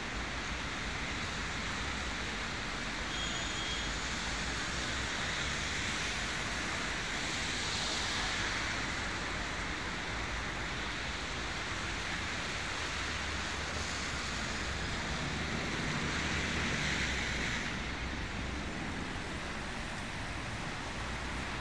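Steady hissing street noise of traffic on wet pavement, swelling twice as vehicles pass.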